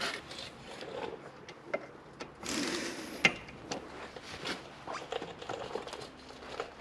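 Scattered light clicks and rattles of hand tools and sockets being handled, with a short rustling burst about two and a half seconds in.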